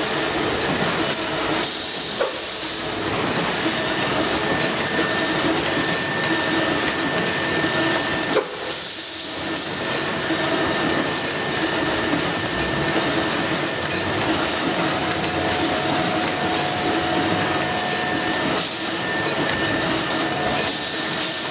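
Semi-automatic aerosol can production line running: steady machine noise with a strong hiss and light clatter, and one sharp click about eight seconds in.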